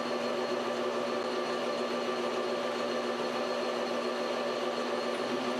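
Metal lathe running steadily while its tool turns down a copper bar, a constant hum made of several steady tones with no change in pitch.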